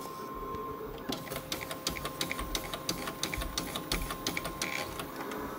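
Inotec Scamax 6x1 document scanner feeding a stack of small 56x60 mm documents through its transport. A steady machine hum runs under rapid, irregular clicking that starts about a second in and stops near the end.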